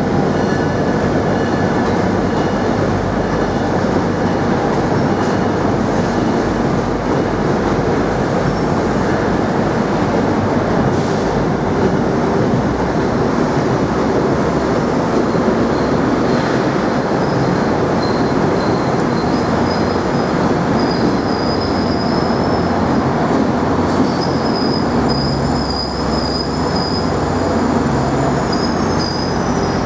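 Passenger train rolling by at close range: a steady loud rumble of wheels on rail, with high-pitched wheel squeal coming in on and off from about two-thirds of the way through, one squeal sliding down in pitch near the end.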